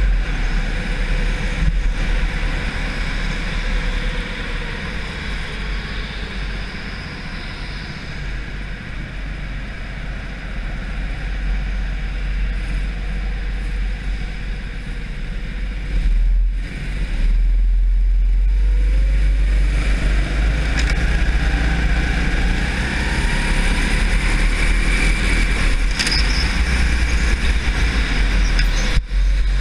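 Racing go-kart engine heard from on board the kart, with a heavy low wind rumble on the microphone; about two-thirds of the way through, the engine pitch climbs as the kart accelerates.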